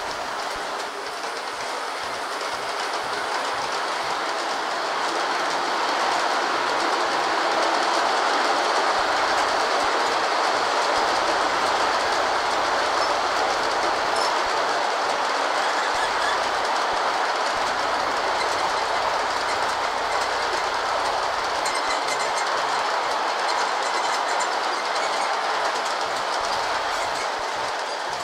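G-scale model freight train rolling past on the track, a steady clatter of wheels over the rails. The rolling noise swells over the first several seconds as the cars come close, then eases a little.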